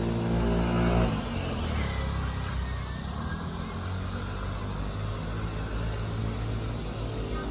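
A car engine running steadily, changing abruptly about a second in, then continuing as a low steady rumble.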